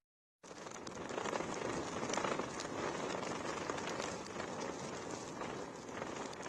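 Heavy cyclone rain falling in a dense, steady patter of drops, cutting in after a brief silence at the very start.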